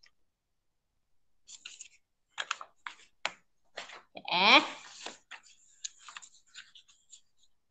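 Scattered clicks and taps of papers and small objects being handled on a desk. About halfway through comes a short, louder sound that rises in pitch.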